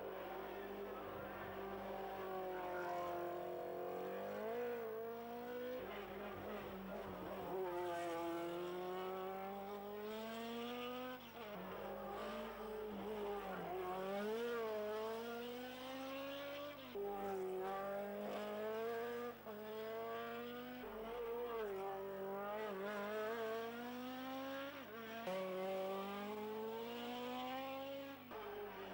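Race cars' engines revving hard as they accelerate up a hillclimb, one car after another. The pitch climbs and then drops again and again as they change gear.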